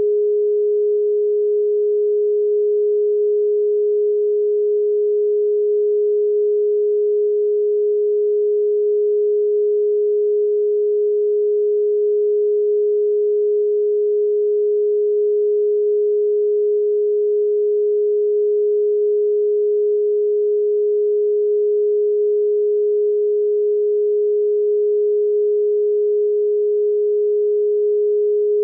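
A single steady pure tone, a little above 400 Hz, held unchanged at a constant level: an electronically generated meditation tone of the solfeggio kind.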